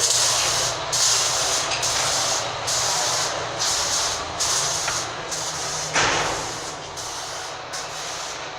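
Industrial ventilation system running: a steady rush of air with a low hum under it. The hiss pulses regularly in its top end, and there is a brief louder gust about six seconds in.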